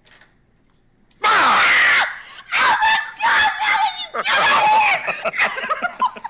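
A woman screaming in fright as she is jumped out at in a scare prank: a sudden loud shriek about a second in, followed by more high-pitched screams and yells.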